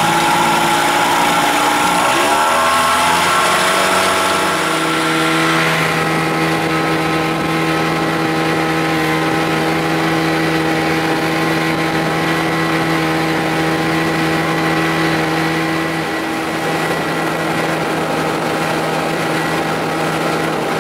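1975 Evinrude 40 hp two-stroke outboard motor under way, its stripped spark plug thread freshly repaired. The engine pitch rises over the first few seconds as it is throttled up, then it runs steadily at cruising speed.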